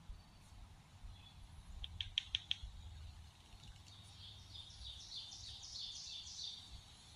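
A small bird calling: a quick run of about five sharp chips, then a string of repeated high chirping notes lasting about three seconds.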